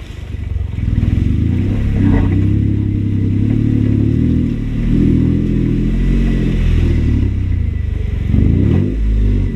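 Jeep engine running on a trail, its pitch rising and falling as the throttle is worked, with brief easings about halfway through and near the end.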